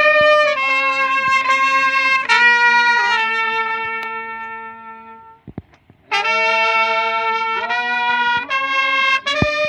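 Solo trumpet playing a slow melody in long held notes; one long note about two seconds in fades away into a short break before the playing resumes.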